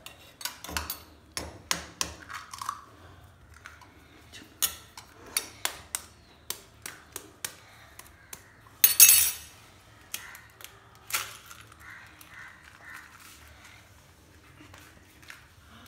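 Eggs tapped and cracked against the rim of a clear blender jar: a run of sharp taps and clicks, a louder half-second burst of noise about nine seconds in, and one more tap a couple of seconds later.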